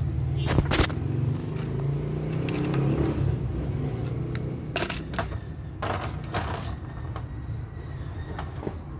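Light clicks and clatter of plastic syringes and vials being handled and wrapped in paper on a plastic basin, a few sharp ticks about half a second in and again around five to six seconds in, over a steady low hum.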